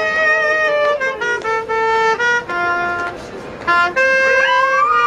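Clarinet playing a melody in held notes, with a dog howling along. Near the end a howl rises and falls in pitch over the tune.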